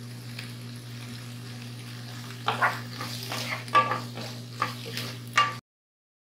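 Diced vegetables sizzling faintly in a non-stick frying pan over a steady low hum, then a wooden spatula stirring them, scraping and knocking against the pan several times in the second half. The sound cuts off suddenly near the end.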